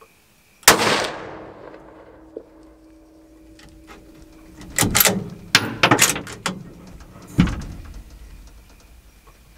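Two rifle shots at a feral hog about six and a half seconds apart, the first the louder with a long echoing decay. Between them comes a quick run of sharp clicks and knocks.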